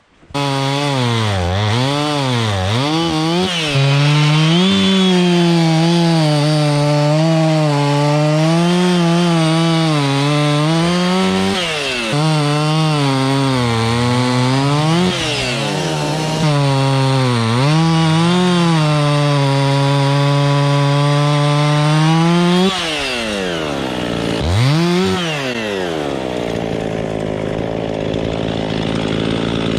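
Two-stroke chainsaw cutting oak, its engine note sagging under load in the cut and climbing again as it frees up, over and over. It starts abruptly, and late on it falls to a lower, easier note with a quick rev.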